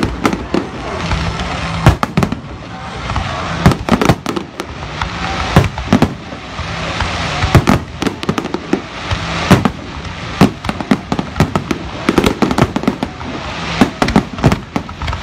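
Finale barrage of aerial firework shells: loud booms in quick succession, several a second, with no let-up.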